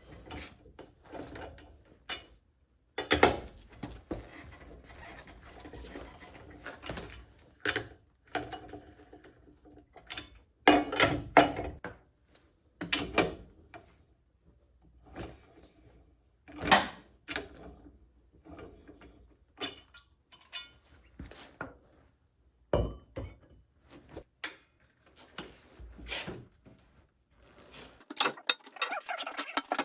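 Scattered metal clanks and knocks of a socket tool at work on a car wheel's lug nuts as they are loosened and taken off, ending in a run of rapid clicks.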